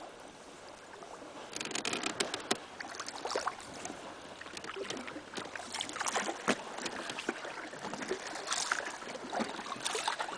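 Water splashing and lapping against a coracle on a river, in irregular small splashes and crackles that pick up about a second and a half in.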